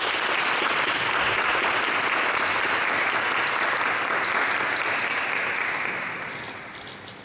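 Audience applauding, a steady spell of clapping that dies away near the end.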